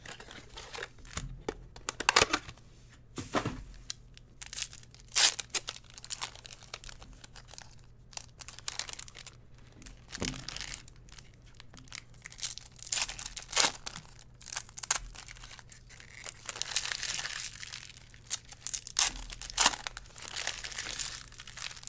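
Trading card packs and their cardboard box being opened by hand: a string of short, irregular crinkles and rips of foil wrappers and card stock.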